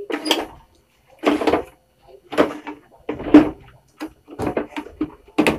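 The main circuit board of a JVC CRT television being tugged at in its plastic chassis: a series of short knocking, scraping bursts about one a second, as the stuck board refuses to slide out.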